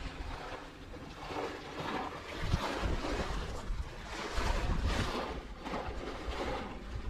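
Gusty wind buffeting the microphone in uneven surges, over the wash of water at the shore.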